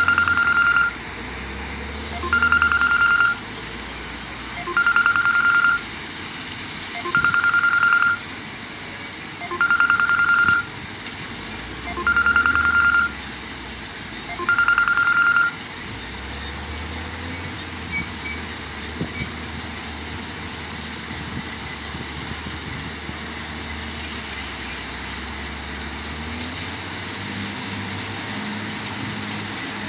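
Heavy-machine backup alarm beeping seven times, steady one-second beeps every two and a half seconds, then stopping about 15 seconds in. Under it the diesel engines of a wheel loader and dump truck run throughout, the low engine sound swelling again in the second half as the loader works.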